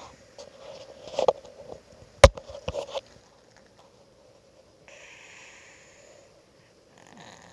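A sleeping cat's snoring breaths, with one long hissy breath about five seconds in. Earlier there are rustling noises and a few sharp clicks, the loudest about two seconds in.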